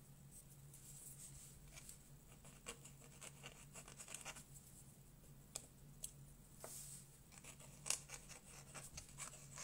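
Faint scratching of a broad metal dip-pen nib on watercolour paper, in short irregular strokes as foliage is scribbled in with ink.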